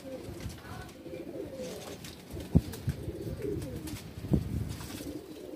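Domestic pigeons cooing, low and wavering, with two sharp knocks about two and a half and four and a half seconds in.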